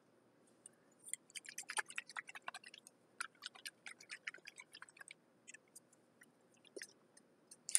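Faint, rapid clicks and taps from a glass jar with a metal lid being handled and turned in the hands, thick for a few seconds and then scattering out.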